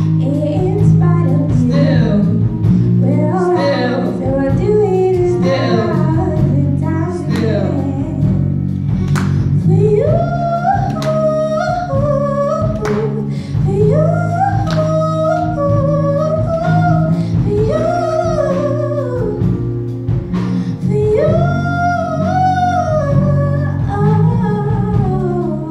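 Live band with drum kit and electric bass backing a woman singing, her voice holding long notes that slide up and down over a steady low bass line; the music eases off slightly near the end.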